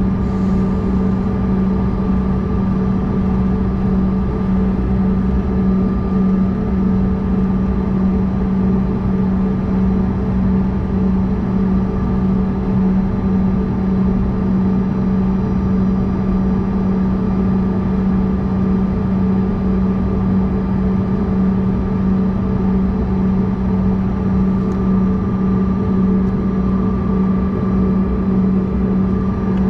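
Cabin noise of a CRJ-200's rear-mounted GE CF34 turbofans running steadily at low power as the jet taxis onto the runway: a constant drone with a strong low hum and a faint steady whine above it.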